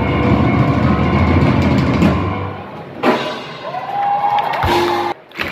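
Loud show music with drums over a circus arena's sound system, heavy in the bass for the first two or three seconds. After a sharp hit about three seconds in, a held tone rises and then stays steady, and everything cuts off suddenly near the end.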